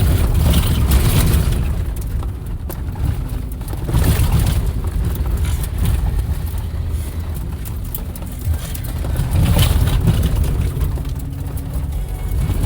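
Off-road vehicle driving over a rough dirt trail: a steady low rumble of engine and tyres, with scattered knocks and rattles as it bumps along.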